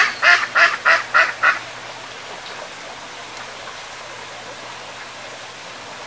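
Ducks quacking: a quick run of about six rasping quacks, roughly three a second, that stops about a second and a half in, leaving a steady low hiss.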